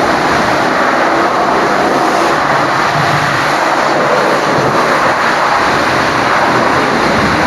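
High-pressure water spray hitting a truck's bodywork: a loud, steady hiss that does not let up.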